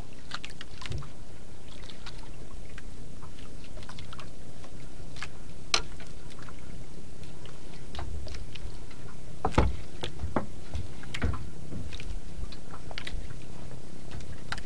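Steady low rumble aboard a small wooden outrigger fishing boat, with a few scattered clicks and knocks as a handline is worked by hand over the side.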